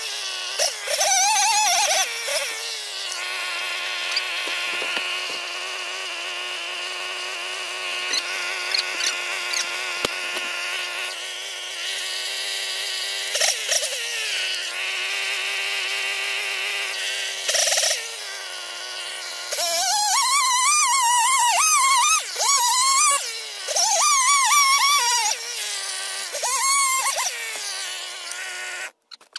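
Stihl two-stroke chainsaw running, cutting a piece off a big log: a steady buzz, with repeated louder revs where the pitch rises and wavers, most in the latter part.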